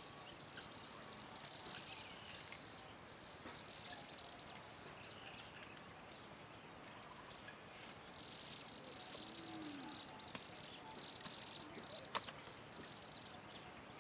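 Outdoor ambience of high, buzzy chirping calls in short repeated bursts, pausing for a couple of seconds midway, with a single sharp click near the end.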